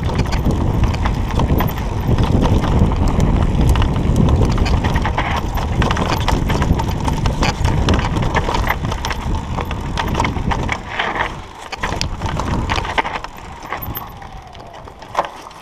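Mountain bike ridden along a dirt trail: heavy rumble of tyres and wind with many clicks and rattles from the bike over the rough ground. It eases off about eleven seconds in.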